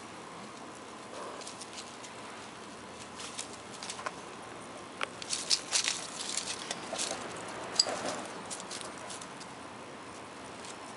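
Kittens scampering and pouncing over dry leaves and grass on concrete: light pattering with crisp rustling clicks, busiest in the middle.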